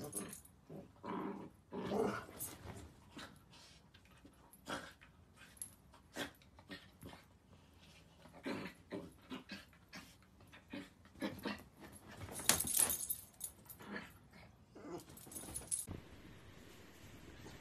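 Miniature dachshund growling and whining in many short, irregular bursts, with one louder, harsher burst about twelve and a half seconds in.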